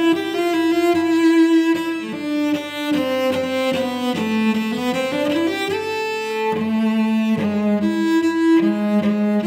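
Solo cello played with the bow: a melody of held notes, changing about once a second, with a smooth upward slide in pitch around the middle. Near the end two notes sound together.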